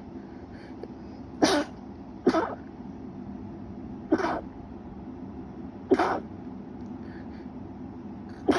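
A person's stifled, held-back sneezes: five short sharp ones, one every one to two seconds, in an allergic sneezing fit.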